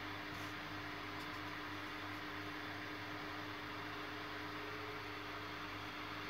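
Steady mechanical hum with a constant low tone under an even hiss, unchanging throughout.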